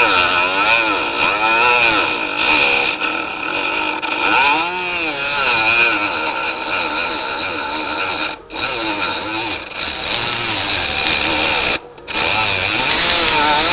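Milling machine cutting into a ukulele body: a steady high whine with lower tones that waver up and down as the cutter works. The sound drops out briefly twice, once past the halfway point and again near the end.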